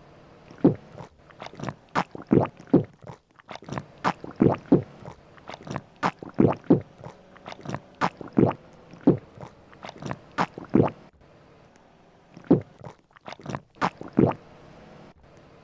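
A person eating: a run of crisp bites and crunchy chewing, irregular, with a short pause about eleven seconds in.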